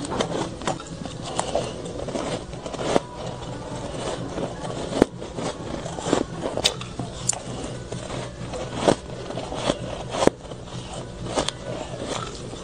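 Close-miked chewing of matcha shaved ice: a continuous crackling crunch with sharp, louder crunches at irregular intervals.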